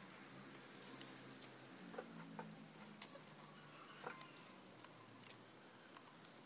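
Near silence, broken by a few soft clicks of bonsai training wire being bent and wrapped around a branch by hand, and a couple of faint, high bird chirps.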